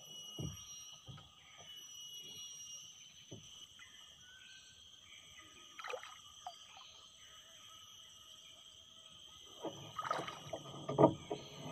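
Small wooden boat being paddled: scattered knocks and light splashes, with a cluster of louder knocks near the end, over a steady high-pitched whine.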